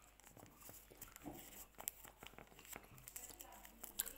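Faint, irregular small clicks and crackles of a candy stick being eaten and its wrapper handled close to the microphone.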